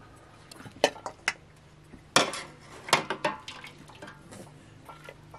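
Metal ladle clinking against a metal cooking pot and bowl as boiled meat on the bone is lifted out. About five sharp clinks, the loudest about two and three seconds in.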